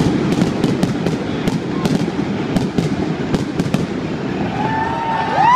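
Aerial fireworks going off: rapid sharp bangs and crackles over a continuous low rumble, thinning out in the last couple of seconds as the display ends. Near the end, rising whoops from the crowd begin.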